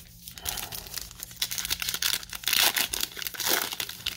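A plastic trading-card pack wrapper being torn open and crinkled by hand: a dense run of crinkles that grows louder about two and a half seconds in.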